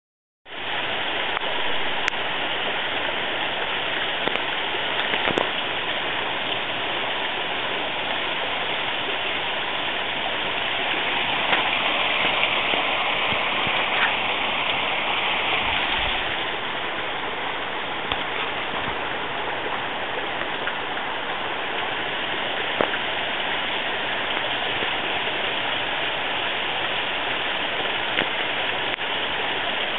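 Waterfall rushing steadily as water pours down a rock face.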